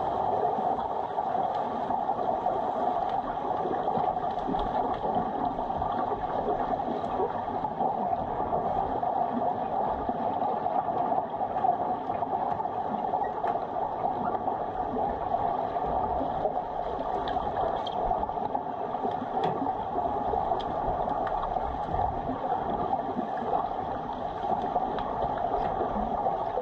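Steady, muffled underwater pool noise picked up by a submerged camera, an even hiss with faint scattered clicks.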